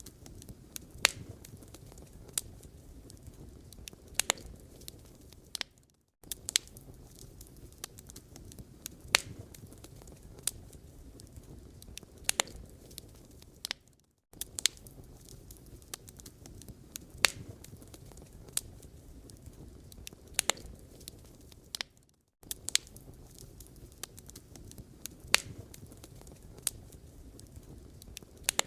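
Wood fire burning in a fireplace, crackling: sharp pops and snaps over a soft low rumble of burning. The same stretch of crackling repeats about every eight seconds, each time broken by a short drop to silence.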